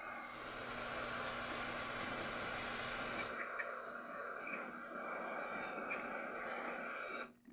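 Aerosol can of carburetor cleaner spraying through its thin extension straw onto a lawn mower carburetor in a steady hiss. The hiss eases for a moment about halfway through, comes back, and stops abruptly near the end.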